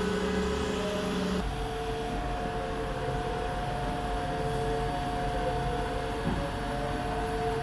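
SANY SY37 truck-mounted concrete pump running under load, a steady machine hum with held whining tones; the pitch of the whine shifts abruptly about a second and a half in.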